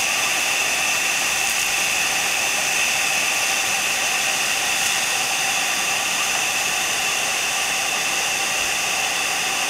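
Iguassu Falls' falling water making a loud, steady rushing sound, heard close up.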